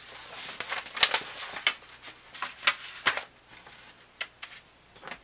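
Photocopied paper instruction sheets rustling and crinkling as they are unfolded and laid flat. The rustling is loudest in the first second, followed by a scatter of sharp crackles that thin out after about three seconds.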